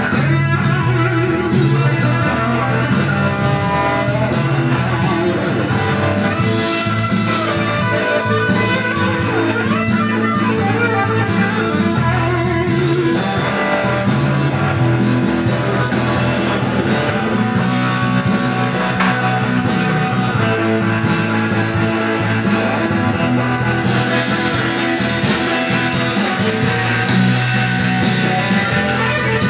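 Single-cutaway electric guitar played continuously, melodic lead lines over steady sustained low notes that sound like a recorded backing track.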